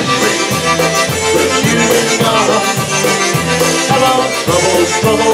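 Live polka band playing an instrumental passage: piano accordion, concertina and saxophone over drums keeping a steady beat.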